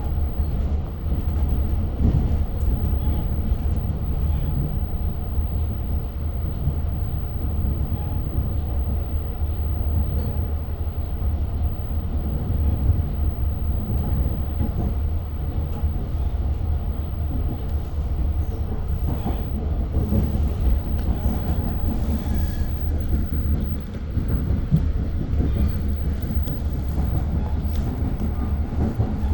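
Long Island Rail Road train running along the track, heard from inside a passenger coach: a steady low rumble with light clicking of wheels over rail joints.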